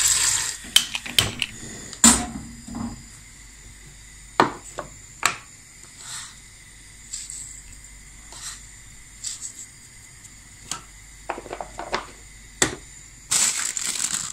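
Scattered knocks and clinks of a saucepan and kitchen things being handled on a gas stove grate, with a short hiss near the end.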